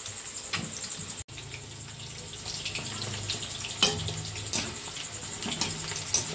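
Chicken pakoras deep-frying in hot oil in a kadai, a steady sizzle. From about four seconds in, a metal slotted skimmer clinks against the pan several times as the pieces are turned so they fry evenly on all sides.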